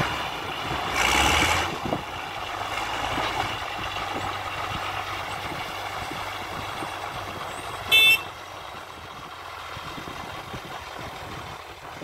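Farm tractor's diesel engine running under load while packing chopped silage. It revs up briefly about a second in, then runs steadily at lower revs. A short, shrill tone sounds once about eight seconds in.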